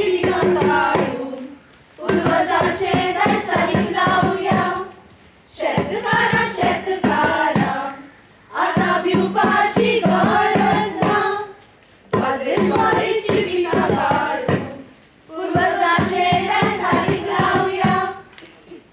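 A group of voices singing together in repeated phrases of about three seconds, each followed by a short break, with a hand-played barrel drum beating the rhythm through the phrases.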